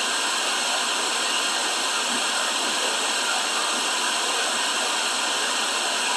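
Steady, even rushing hiss, like white noise, with no change in level.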